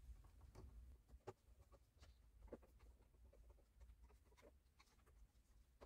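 Near silence broken by a few faint, scattered clicks and scrapes: wall switches being handled and fitted into a wall box.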